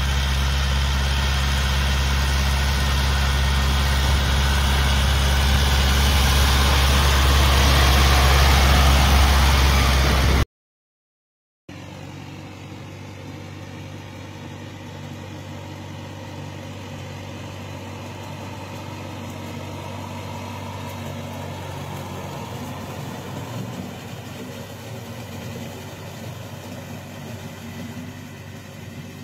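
Kirloskar tractor's diesel engine working under load while pulling a tillage implement, a steady engine note growing slightly louder. About ten seconds in it cuts out for about a second, then another tractor is heard farther off, its engine quieter and steady.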